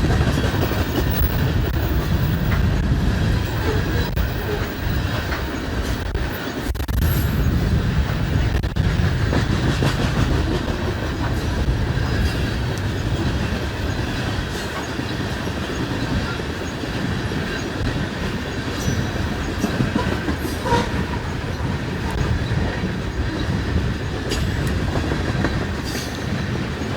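A coal train's freight cars rolling steadily past: a continuous rumble of steel wheels on the rails with scattered clicks.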